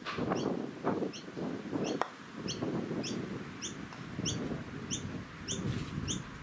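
A bird repeating a short high chirp about every third of a second, over a gusty low rumble. A single sharp click about two seconds in.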